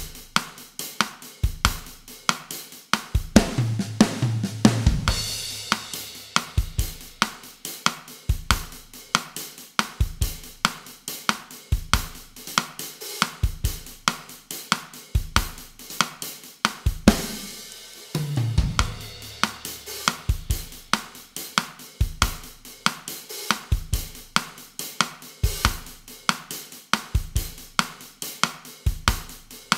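Drum kit alone playing a bossa nova groove at 140 bpm: steady bass drum, snare and hi-hat or cymbal pattern. Twice, a few seconds in and again past the middle, a fill on the lower drums with a cymbal crash breaks the pattern.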